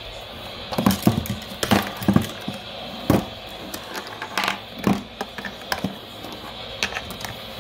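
Irregular sharp plastic clicks and knocks, a handful of louder ones spread over several seconds, from a battery-powered radio being handled.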